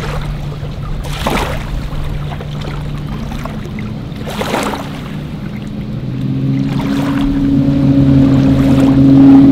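A bass boat's outboard motor running at low speed: a steady drone that grows louder over the last few seconds. Two brief rushing noises come about a second and about four and a half seconds in.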